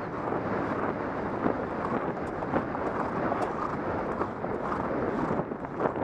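Wind rushing over a helmet-camera microphone during a gallop, a steady rumbling hiss with a few faint knocks.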